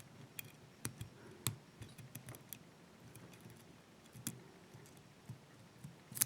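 Faint, irregular clicks and light metallic scrapes of a lock pick and tension tool working the pin stack inside a 5-pin brass barrel padlock.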